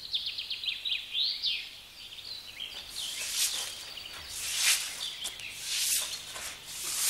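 Birdsong, quick high chirps and sweeping calls, over the first few seconds, then rustling hisses that swell and fade about once a second.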